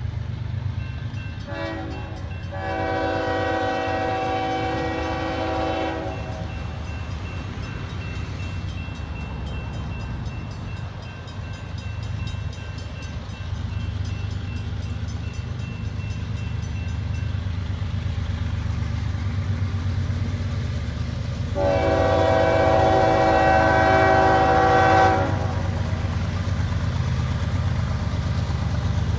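Air horn of an approaching CSX coal train's lead GE ES44AH locomotive sounding two long chord blasts: the first a second or so in, with a short break just after it starts, and a louder one about twenty-one seconds in. A steady low rumble runs beneath.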